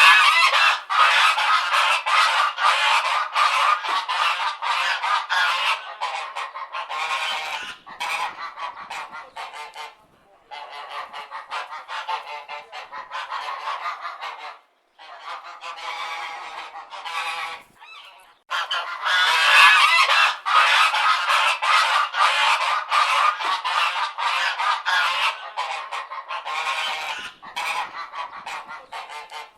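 Domestic geese honking very loudly, many overlapping honks in long bouts, broken by short pauses about ten, fifteen and eighteen seconds in.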